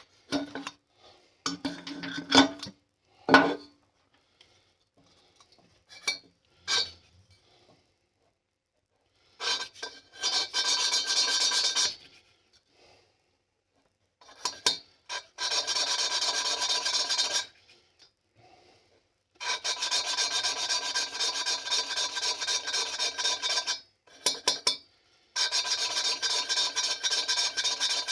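Exhaust valves being hand-lapped into their seats in a Triumph Bonneville cylinder head: a gritty rasping of valve face against seat, made by quick back-and-forth strokes. It comes in four spells of a few seconds each, after some clinks and knocks of parts being handled near the start.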